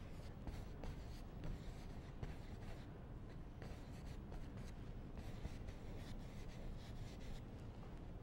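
Faint scratchy swishing of a paintbrush laying oil paint onto canvas in quick, irregular strokes, over a low steady room hum.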